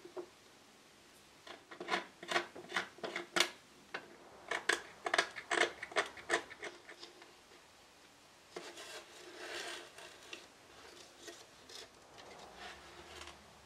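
Light wooden clicks and knocks as pieces of an old wooden mirror frame are handled and set down on a work board, several in quick succession. Then a brief rubbing, sliding sound.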